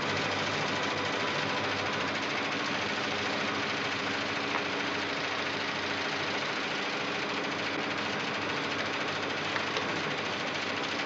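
Sitcom sound effect of a bank computer running: a steady mechanical whirring and clattering.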